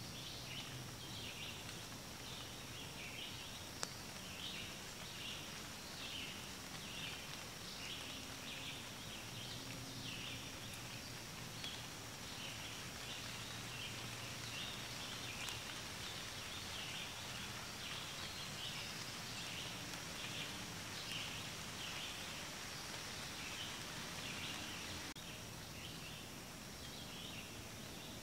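Faint chorus of small birds: short high chirps and calls repeating several times a second throughout, over a steady thin high-pitched hum.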